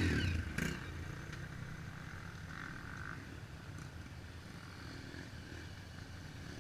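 Trail motorcycle engine idling steadily at low volume.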